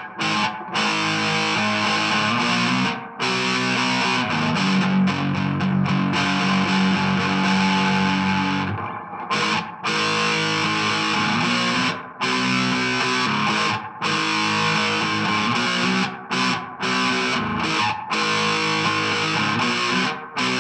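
Electric guitar (2012 Epiphone Les Paul Standard with its stock pickups) played with overdrive through a Marshall Origin 20 head and a 2x12 cabinet: held, distorted chords, stopped short and struck again every few seconds.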